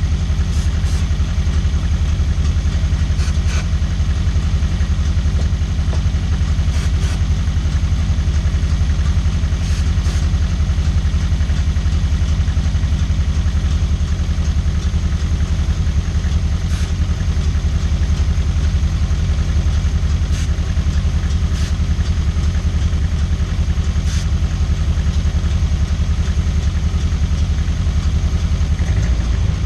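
Toyota 4A-GE 1.6-litre 16-valve four-cylinder engine of a 1985 MR2 idling steadily, with a few faint ticks here and there.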